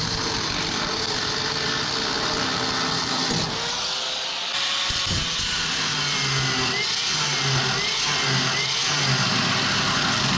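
Power tool cutting through the truck bed's sheet metal: a steady whine and hiss, its pitch dipping slightly about halfway through.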